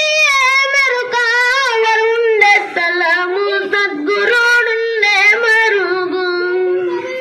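A young boy singing solo into a handheld microphone, unaccompanied. He sings long held notes with a wavering, ornamented pitch, taking short breaths between phrases.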